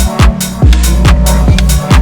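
Electronic dance music with a steady pounding kick drum, a little over two beats a second, over a sustained bass line and ticking hi-hats.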